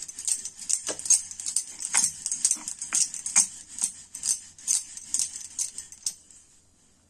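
Wooden rolling pin rolling out roti dough on a wooden board, with a crisp clack or rattle at each back-and-forth stroke, about two a second. The strokes stop about six seconds in.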